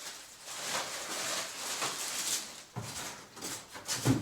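Plastic packaging rustling and crinkling as vacuum parts are unwrapped by hand, with a couple of soft knocks in the second half.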